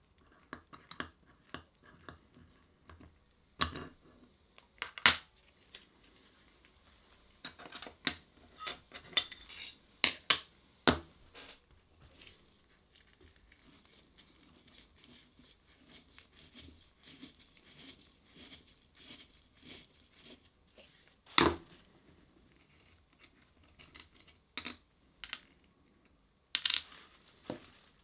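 Small metal parts of a cast-iron Stanley 75 bullnose plane are handled and taken apart by hand. Scattered clicks, clinks and knocks come from the screw, washer and lever cap being worked loose with a screwdriver and set down on a wooden table, with the loudest knock about two-thirds of the way through.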